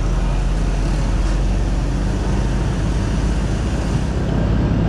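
Steady engine drone with wind and road noise from riding a motorcycle close behind a container truck, the low engine note holding even throughout.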